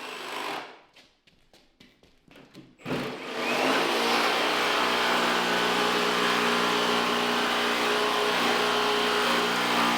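Faint clicks and handling, then an electric power-tool motor starts about three seconds in, spins up and runs steadily.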